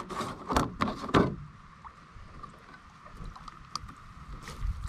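Water splashing in a few quick bursts in the first second or so, as the wet catch and water weed are handled over a bamboo basket, then small scattered clicks and rustles of fingers picking through the weed, over a faint steady hum.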